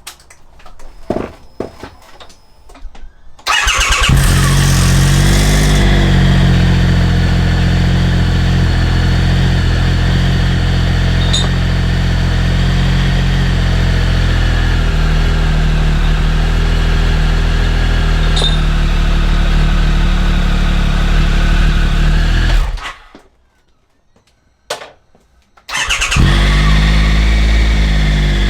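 Triumph Explorer 1200 motorcycle's three-cylinder engine started after a few clicks, running fast for the first couple of seconds and then idling steadily. It shuts off near the end, then is started again and idles.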